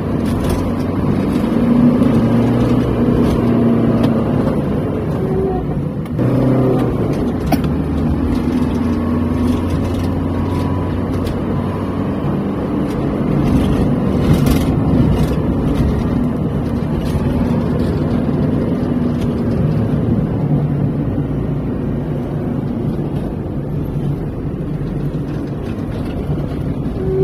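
Car engine and road noise heard from inside the cabin while driving, a steady low hum whose engine note shifts about six seconds in.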